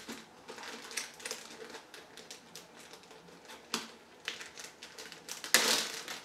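Plastic food bag crinkling and crackling as gloved fingers work it open, in irregular light clicks with a louder rustle about five and a half seconds in.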